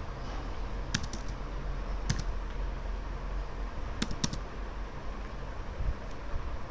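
A few separate computer-keyboard keystrokes, single clicks spaced a second or two apart with a quick pair near the middle, over a low steady hum.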